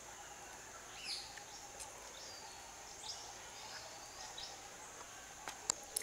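Outdoor birds-and-insects ambience: birds chirping with short falling calls over a steady high insect drone. A couple of sharp clicks near the end.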